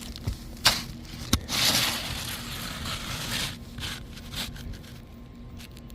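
Asphalt roof shingles being handled: two sharp knocks about a second apart, then a couple of seconds of scraping and rustling, then a few lighter knocks.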